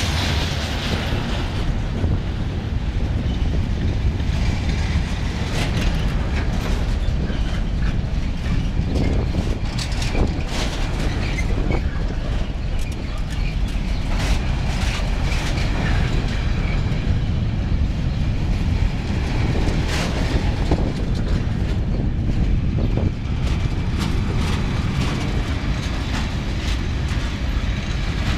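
Freight train wagons rolling past at speed, their wheels clattering over the rail joints with many sharp clicks over a heavy, steady rumble.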